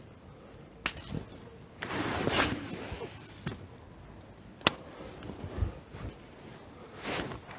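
Handling noise from a baitcasting rod and reel: a few sharp clicks and a rustling stretch about two seconds in, with another short rustle near the end.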